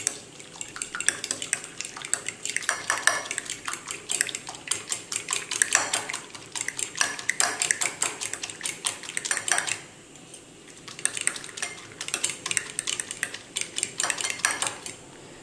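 A fork beating raw eggs in a ceramic bowl: quick, rapid clinks of the metal tines against the bowl as the eggs are whisked for an omelette. The beating stops for about a second roughly two-thirds of the way through, then resumes.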